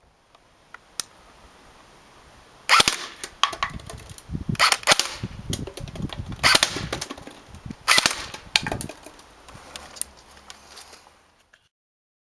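ASG MP5A5 electric airsoft gun firing several short full-auto bursts of rapid clicks, with a few single shots in between.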